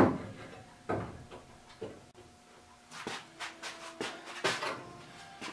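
Tools and metal hardware being handled against a pegboard wall: a series of light knocks and clatters. From about three seconds in, some are followed by a faint metallic ring.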